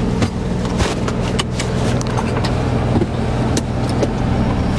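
Heavy truck's diesel engine running steadily, with several sharp clicks and knocks over it.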